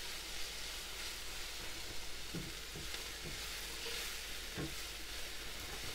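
Sliced red onion and garlic sizzling steadily in olive oil in a nonstick frying pan as they are stir-fried with a spatula. The spatula knocks and scrapes against the pan a few times in the middle.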